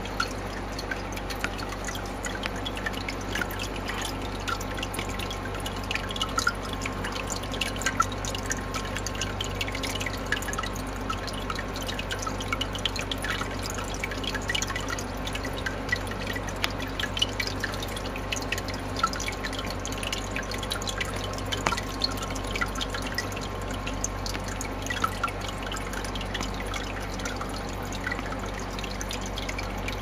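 Small tabletop resin water fountain running: water trickling from a spout and dripping into a shallow basin in many small, quick drips, over a steady low hum.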